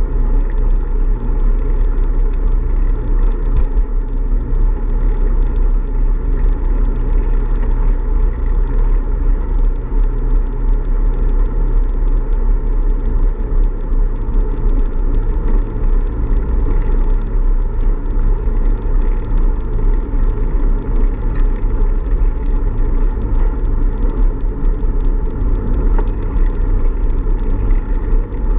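Steady low rumble of wind buffeting the microphone of a camera on a moving bicycle.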